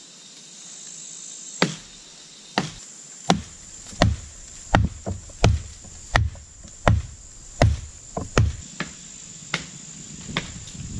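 Axe chopping into a small green tree trunk: a steady run of sharp, woody blows, a little faster than one a second, starting about a second and a half in. A high, steady insect buzz from crickets or cicadas runs underneath.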